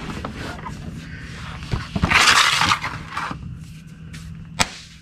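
A plastic oil drain pan dragged across a concrete floor, a scraping rush lasting about a second, followed near the end by a single sharp click.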